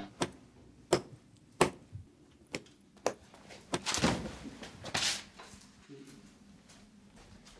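A scuffle: a run of sharp thuds and smacks, about one every half to three-quarters of a second through the first five seconds, as a person is struck and knocked to the floor. Then only faint rustling.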